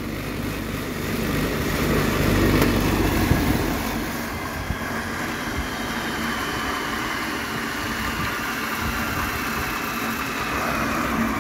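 Electric motor and the generator it drives running steadily, with the bulbs it powers lit as load. A faint whine slowly falls in pitch over the second half.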